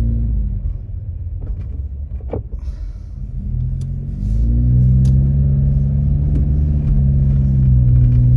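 Car engine and road rumble heard from inside the cabin while driving. About four seconds in, the engine note rises and settles into a steady drone as the car picks up speed.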